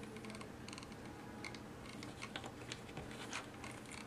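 Faint, scattered light clicks and taps of small plastic parts being handled on a tabletop: a computer mouse and its detachable side-button plates.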